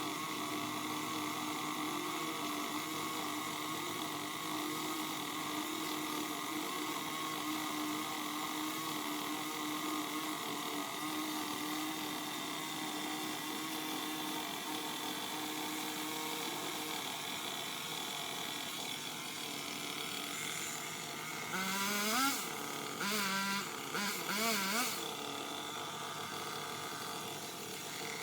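A steady mechanical hum, then near the end a Craftsman power limb cutter's motor spins up and down in several short bursts, its pitch rising and falling.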